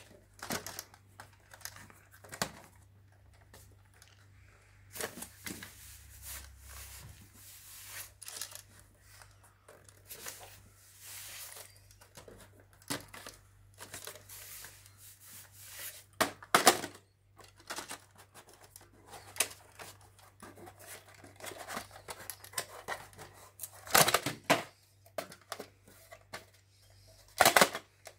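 VHS cassettes and their cardboard sleeves handled and moved about on a table: irregular rustling and scraping with short plastic clacks, the sharpest about 16 seconds in and twice near the end.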